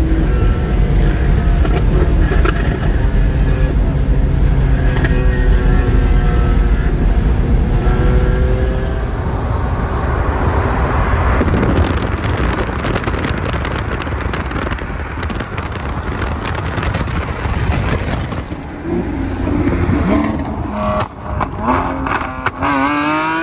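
Supercar engines under hard acceleration, heard from inside a car running alongside a Lamborghini Aventador SVJ whose V12 has an aftermarket exhaust: the engine pitch climbs and steps through gear changes, gives way midway to a stretch of rushing wind and road noise, and climbs steeply again near the end.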